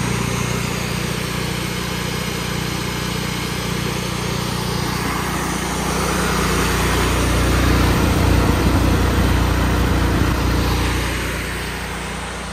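Honda gasoline engine of a truck-mounted pressure washer running steadily, driving the pump. It gets louder for a few seconds in the middle, then eases off near the end.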